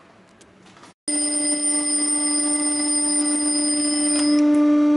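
Mechanical twin-bell alarm clock with stamped steel bells, ringing continuously. The ringing starts abruptly about a second in, and its highest tones drop out a little after four seconds while the lower ringing carries on.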